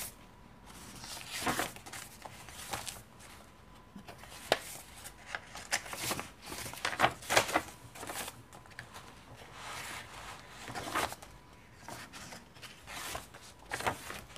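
Pages of a handmade paper journal being turned by hand: a string of short, irregular paper swishes and rustles.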